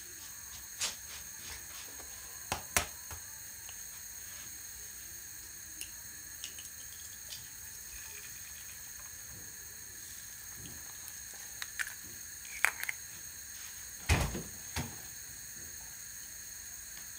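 Kitchen handling noises: scattered light clicks and knocks, with one louder thump about fourteen seconds in, as the refrigerator door is opened, over a faint steady hiss.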